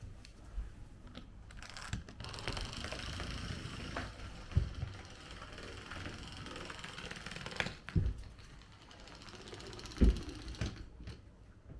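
A toy mouse's small geared motor whirring and clicking as it runs, with a few sharp knocks about four and a half, eight and ten seconds in.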